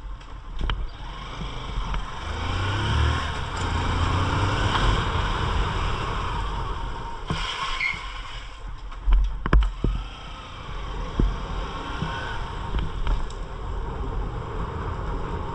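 Honda CG 160 Titan motorcycle's single-cylinder engine running while riding through streets, with a couple of loud low bumps about nine seconds in.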